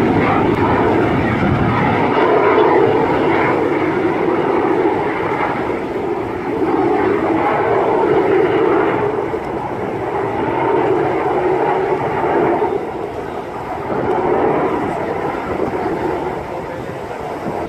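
Jet aircraft of an aerobatic display flying overhead: a loud, steady rushing engine noise that swells and eases several times.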